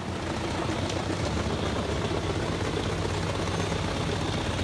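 Truck-mounted drum wood chipper (Biber 84 on a MAN TGX 480 chassis) running steadily, its heavy engine holding a constant low hum under an even mechanical noise.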